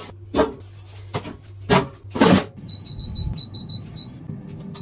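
Potato pieces knocking into a Cecotec air fryer's basket a few times. This is followed by a quick, even run of about eight short high beeps from the fryer's touch-control panel as its settings are tapped in.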